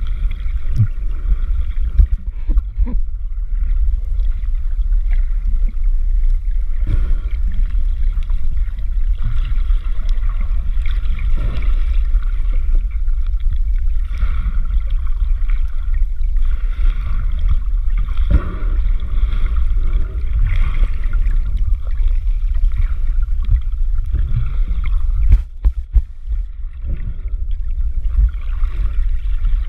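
Water heard underwater through a GoPro Hero4's waterproof housing: a muffled, steady low rumble of moving water with gurgling and a few faint clicks against the case.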